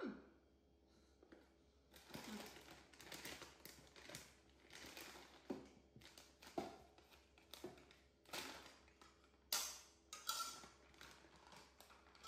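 Plastic bag of pancake mix and its cardboard box being handled and opened, crinkling and rustling in short irregular bursts, with a little powder being poured into a ceramic bowl near the end.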